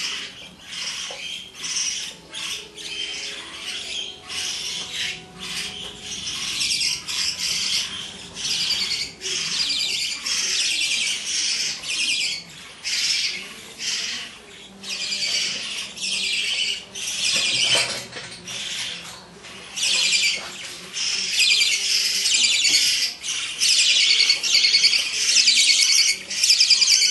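Budgerigars calling: a long run of high calls in short bursts, each under about a second, with brief gaps between them.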